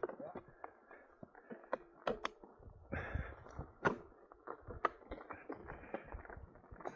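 Mountain bike rolling down a loose gravel track: tyres crunching over stones, with many scattered clicks and knocks from the bike.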